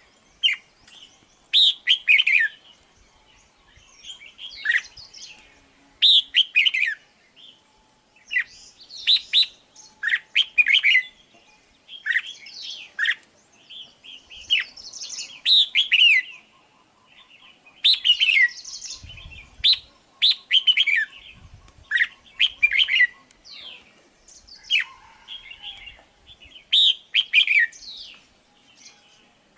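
Red-whiskered bulbul singing: short phrases of sharp chirping notes, repeated every second or two with brief pauses between them.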